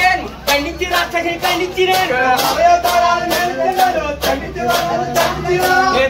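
Men singing together to a steady beat of clashing metal strikes from large brass hand cymbals.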